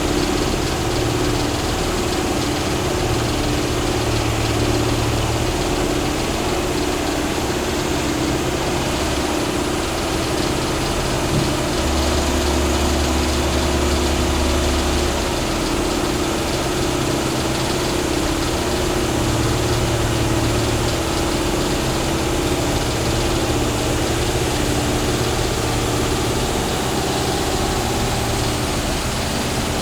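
Diesel engine of a Hitachi 138 excavator running steadily, its low note swelling and easing now and then, as under varying hydraulic load, while the machine climbs onto a truck.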